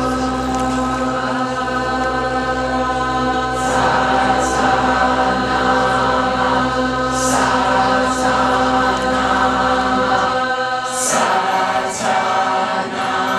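Live ambient music built on a steady, deep didgeridoo drone under layered sustained tones, with a few brief high chime-like shimmers. The deep drone drops out about ten seconds in while the higher held tones carry on.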